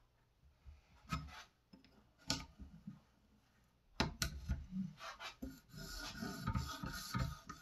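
A few light clicks from handling the Edge Pro sharpening system, then a knock about four seconds in and a run of rubbing strokes as the sharpening stone on its guide rod is drawn across a knife edge.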